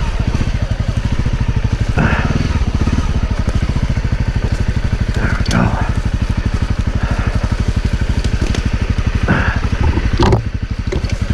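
Honda CRF250L's single-cylinder engine chugging at low speed while the dirt bike crawls over a rocky trail, with several sharp knocks and crunches from the tyres and suspension striking rocks.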